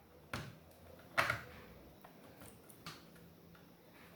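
A few short, sharp plastic-and-metal clicks and taps from handling a laptop and screwdriver while removing the screws from its underside. The loudest comes a little over a second in, with fainter ticks after it.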